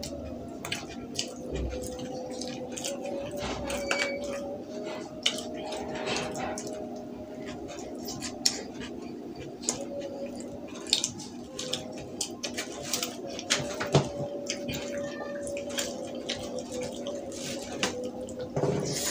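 Close-up eating sounds of a burger being chewed, with many short scattered clicks and crinkles from handling its paper wrapper and a plastic utensil, over a steady low hum.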